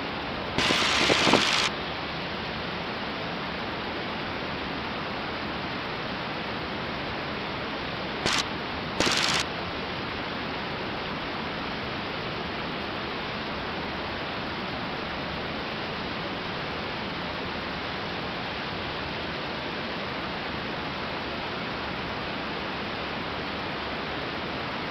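Steady rushing noise of a 1946 Aeronca 7AC Champ in cruising flight, engine and slipstream blended into an even hiss. Brief louder bursts of hiss come about a second in and twice around eight to nine seconds in.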